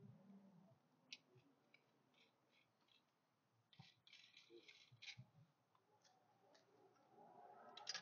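Faint scattered clicks and small rattles of roof rack mount and clamp parts being handled, with a short cluster of clicks about four seconds in and another near the end.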